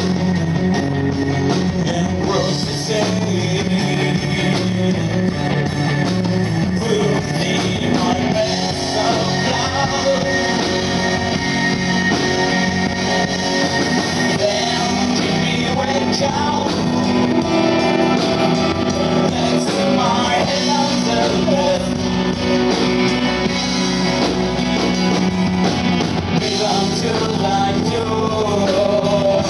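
A rock band playing live: a male singer over strummed acoustic guitar, electric guitar and bass guitar.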